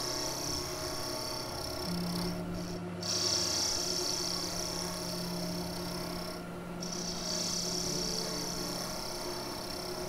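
Wood lathe running with a steady hum while a skew chisel takes a light planing cut along a spinning spalted maple knob. The cut gives a high steady hiss that breaks off briefly twice, about two and a half and six and a half seconds in.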